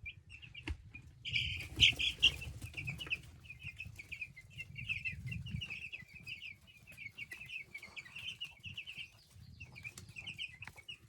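A small flock of chickens giving a continuous run of short, quick, high clucking calls while feeding, loudest for a moment a little over a second in. Scattered light ticks run underneath.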